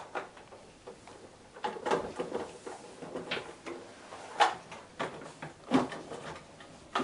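A stack of clear plastic boxes holding lab tubes rattling and knocking as it is lifted and set down into a hard transport case: a scatter of short clicks and clatters, the sharpest about four and a half seconds in.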